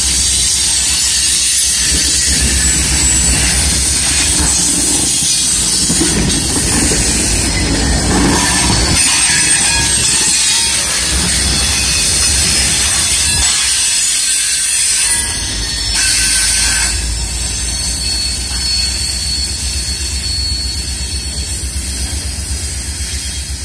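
Freight train tank cars rolling past close by, steel wheels grinding on the rails with high-pitched wheel squeal on a curve. Fades slightly near the end as the last cars go by.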